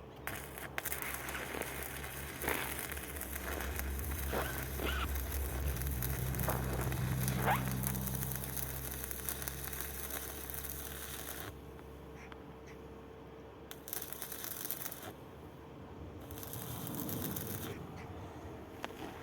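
Electric arc welding on a KamAZ truck's steel frame: the arc crackles steadily with a low hum under it in the middle, stops about 11 seconds in, then comes back in short crackling bursts.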